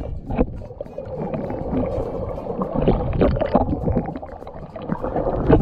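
Muffled underwater noise heard through a submerged camera: water sloshing and gurgling around it, with many small clicks and knocks.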